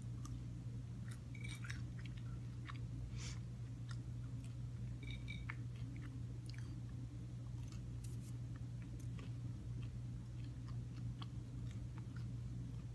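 A person chewing a soft filled pastry pocket with closed-mouth eating noises: scattered small wet clicks and smacks. A steady low hum runs underneath.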